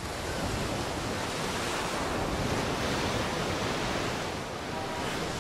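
Ocean surf breaking and washing up on a sandy beach: a steady, even rush of waves.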